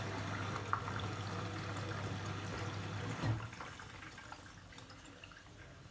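Bosch WAT28370GB washing machine on its final rinse: water sloshing in the turning drum over a steady low motor hum. Just after three seconds in, the hum stops with a short falling tone and the sound drops to much quieter.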